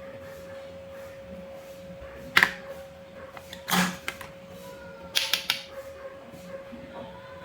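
Wooden toy fruit and vegetables being cut apart with a toy knife: a sharp double knock about two and a half seconds in, a short rasping tear just under four seconds in, then a quick run of clicks and knocks a little after five seconds. A faint steady hum runs underneath.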